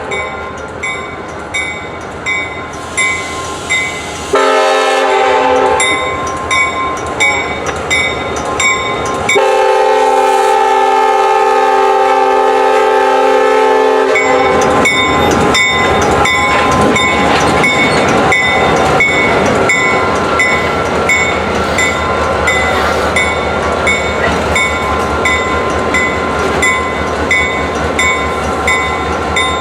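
Grade-crossing bell ringing steadily at about two strokes a second while the locomotive's UP-style multi-chime air horn sounds a short blast about four seconds in and a long blast of about five seconds near the middle. The freight train then rolls through the crossing with wheels clacking over the rail joints.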